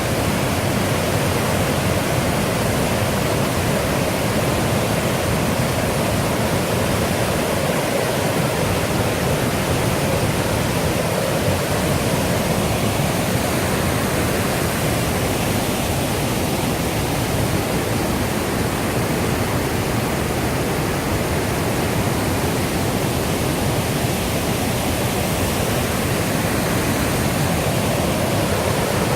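Rushing water of the Millstone River, flowing with a steady, unbroken sound.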